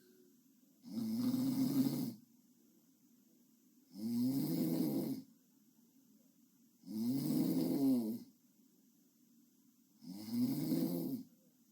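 A young woman snoring in her sleep, four snores about three seconds apart, each lasting about a second.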